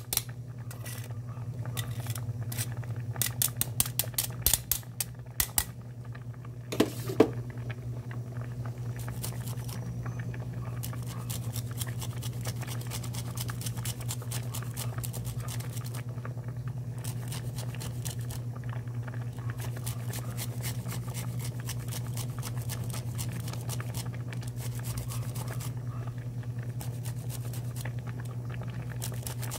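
A pot of mung bean soup simmering with a fine steady bubbling and a low hum. Over the first six seconds come sharp strokes from a metal grater held over the pot, with one louder knock at about seven seconds.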